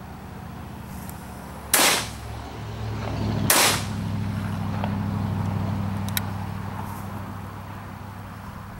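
Two shots from a CZ Bobwhite 28-gauge side-by-side shotgun, both barrels fired in turn about a second and three-quarters apart, each a sharp report with a short echo.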